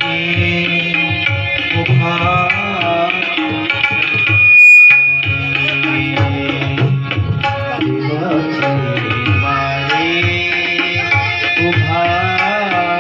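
Marathi devotional abhang sung by a male voice with tabla accompaniment. Near the middle the rest drops out for a moment under a single loud, steady high tone.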